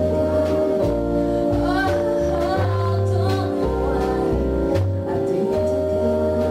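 Small jazz band playing a slow ballad: a woman sings with vibrato over held upright bass notes and keyboard.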